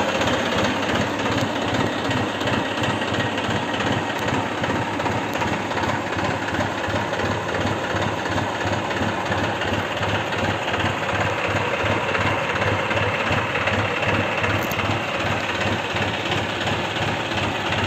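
Tractor diesel engine running steadily close by with a fast, even chug, powering a tractor-mounted pole erection machine.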